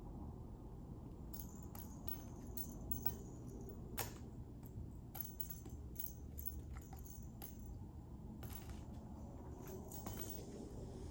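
A small cat toy jingling and clicking in irregular bursts as it is moved about, with a sharper tick about four seconds in.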